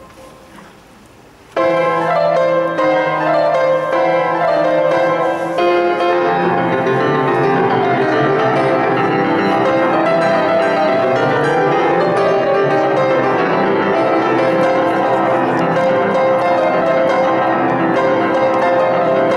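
Grand piano played solo: after a brief hush it comes in suddenly and loudly about a second and a half in, then runs on in quick, full passages of many notes.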